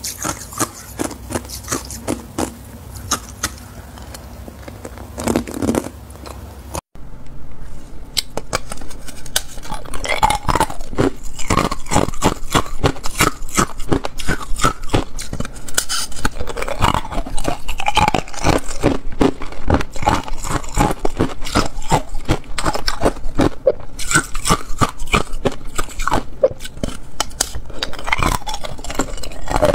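Thin clear ice being bitten and chewed close to the microphone: quick runs of sharp cracks and crunches. After a brief break about seven seconds in, the crunching comes denser and louder.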